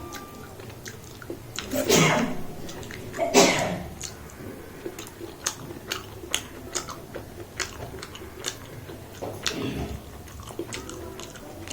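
Close-up mouth sounds of someone chewing food, with many short, sharp clicks and smacks. Two louder, longer eating noises come about two and three and a half seconds in.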